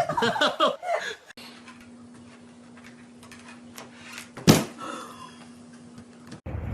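Dog barking and yipping for about the first second. Then comes a quieter stretch with a steady low hum and a single sharp knock about four and a half seconds in.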